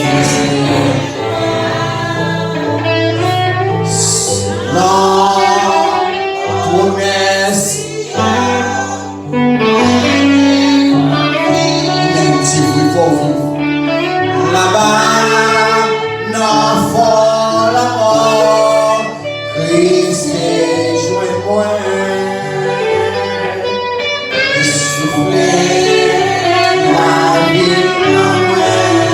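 Church worship song: a woman's voice leads the singing over guitar and a bass line that moves from note to note every second or two.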